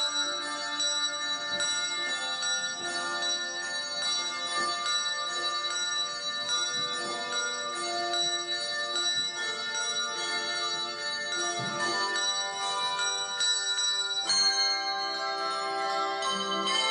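A handbell choir ringing a piece in chords, with the struck bells' notes ringing on and overlapping. A loud new chord is struck about fourteen seconds in.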